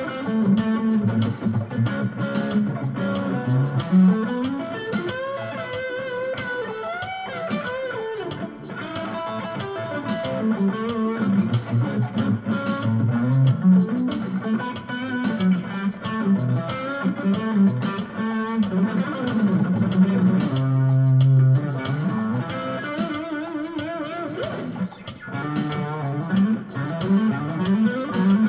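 Electric guitar with ceramic pickups played through a Roland Cube-10 amp on its Classic Stack crunch setting, a lead line full of string bends and slides. Underneath runs a Latin-funk groove from an Alesis drum machine, with even hi-hat-like ticks.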